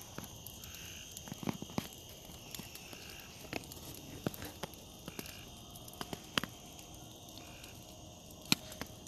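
Outdoor chorus of frogs and insects calling steadily in a pulsing rhythm, with scattered sharp clicks, the loudest a little before the end.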